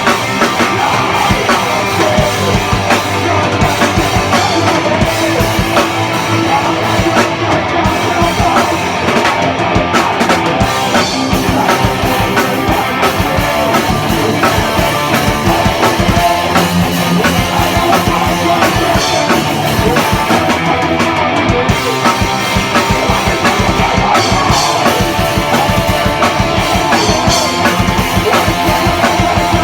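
A rock band playing a song with drum kit and guitar, steady and loud throughout.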